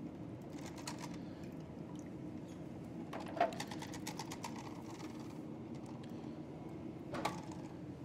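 Plastic clicks and knocks of a furnace condensate pump being handled and pulled apart, the sharpest knock about three and a half seconds in, over a steady low hum.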